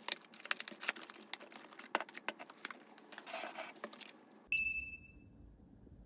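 A run of small, irregular clicks and taps. About four and a half seconds in, a single bright, bell-like ding rings out and fades over about a second.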